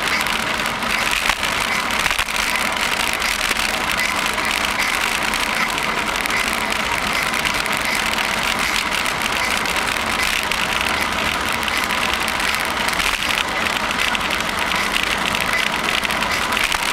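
Steady rushing noise of a bicycle being ridden through a long tunnel: tyres on the pavement and air moving past the microphone, unchanging throughout.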